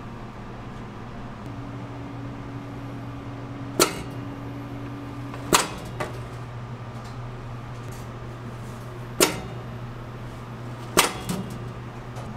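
Donut dough-shaping press, its steel plunger driven down into the dough and back up: four sharp clacks in two pairs, each pair a little under two seconds apart, over a steady low machine hum.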